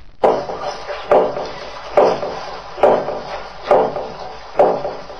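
A wooden percussion instrument struck at a steady beat, six knocks a little under a second apart, each ringing briefly before the next, keeping time for ritual chanting.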